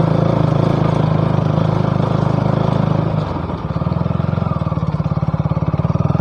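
Motorcycle engine running at a steady speed, then easing off to a lower, slower, pulsing beat about halfway through.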